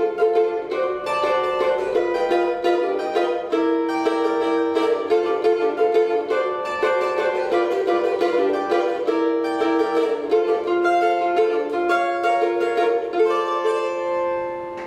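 Upbeat instrumental of quick strummed chords on small four-string instruments of the cavaquinho family, bright plucked steel strings, easing down slightly near the end.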